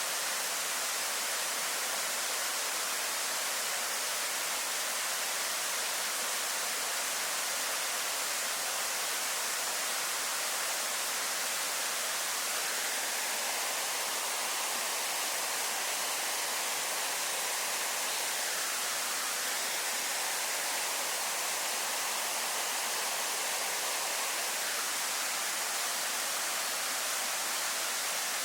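Steady rush of Yakushima's Primitive Waterfall (Gensei no Taki): an even, unbroken hiss of falling water, strongest in the high range.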